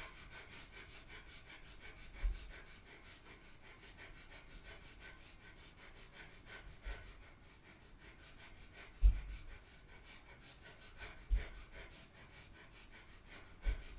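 Breath of fire: rapid, even, forceful breathing through the nose, pumped from the navel, steady throughout. A few low thuds break in, the loudest about nine seconds in.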